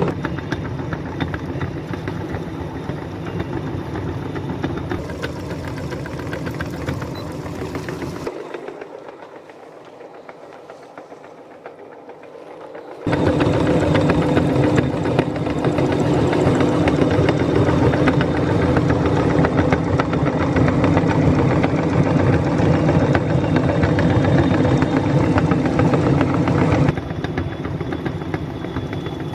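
Electric meat grinder's motor running steadily with a constant hum, the grinder working through water-gel balls. About eight seconds in it cuts abruptly to a much quieter stretch, and comes back at full level some five seconds later.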